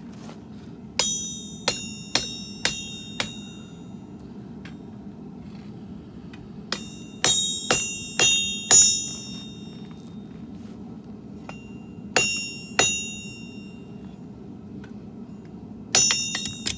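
Forging hammer striking hot steel on an anvil, each blow ringing with a high, bell-like tone: a run of about five blows, a pause, about five more, two more later and another quick cluster near the end. A steady low rush of the propane forge burner runs underneath.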